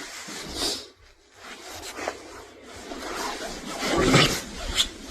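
Scratching and rubbing noises as a cat climbs about, loudest about four seconds in, with a short sharp click soon after.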